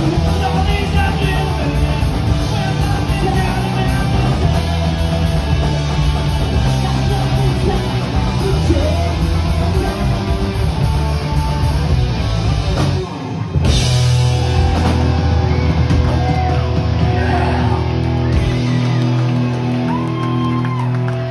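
Live punk rock band playing loud electric guitars, bass and drums, with singing. About 13 seconds in the full band stops, hits once, and then lets a final chord ring on; the bass drops out near the end as the song closes.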